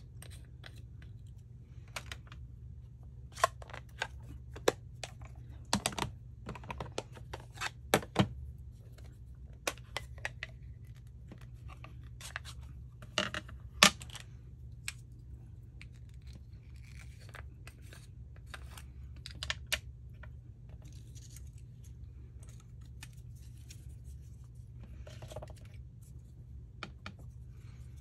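Paper crafting at a tabletop: scattered clicks and taps of small tools and paper pieces being handled and set down, with light paper scratching and rustling, over a steady low hum.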